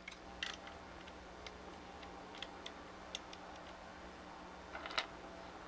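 Scattered faint clicks and taps of small plastic parts being handled and fitted into the blue plastic housing of a 1980s Radio Shack Robotic Banker toy, with the loudest click about five seconds in.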